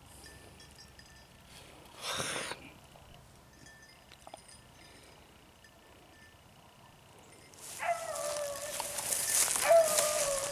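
Beagle hounds baying in long, drawn-out bawls that start loudly about three-quarters of the way in: the cry of rabbit dogs running a trail. A brief burst of noise about two seconds in.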